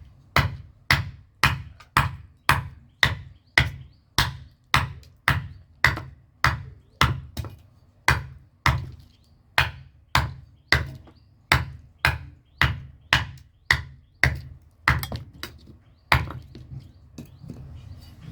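Heavy cleaver chopping steadily, about two blows a second, each a sharp chop with a dull thud; the chopping stops about 16 seconds in.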